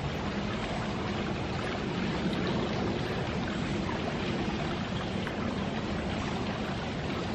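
Steady rushing background noise with a faint low hum underneath, unchanging throughout and with no distinct events.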